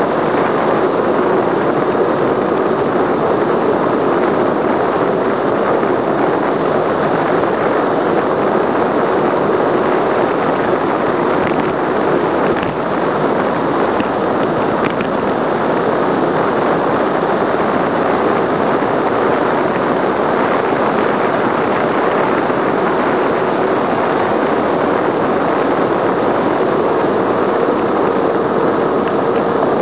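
Steady, loud wind rush over the microphone of a camera on a road bicycle descending at high speed.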